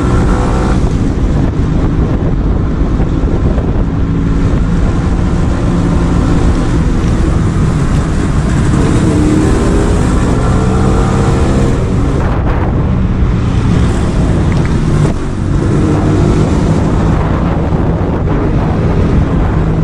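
Yamaha RX 135's two-stroke single-cylinder engine running under way, its pitch rising and falling with the throttle. There is a brief dip in level about fifteen seconds in. Wind buffets the microphone.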